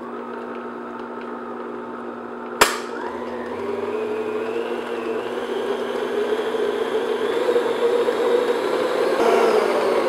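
Electric stand mixer running at medium speed, its paddle creaming butter with brown and powdered sugar in a glass bowl: a steady motor whir that grows a little louder after a few seconds. One sharp click about two and a half seconds in.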